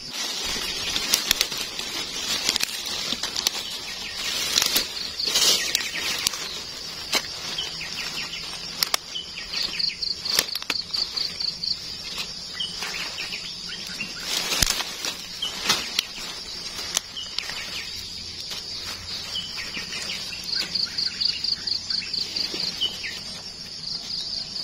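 Dry leaves and twigs rustling and snapping in sharp bursts as mushrooms are picked by hand from the forest-floor leaf litter, over a steady high shrill of insects that breaks into a fast pulsed trill a few times.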